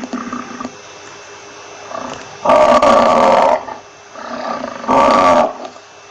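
Buffalo calling: a short low call at the start, then two loud bellows, one about halfway and one near the end, each led in by a quieter call.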